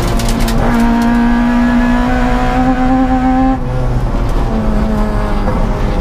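Honda Civic EG rally car's B16 1.6-litre four-cylinder engine heard from inside the cabin, pulling hard at high revs. The revs drop about three and a half seconds in, then climb again, with a brief clatter at the start.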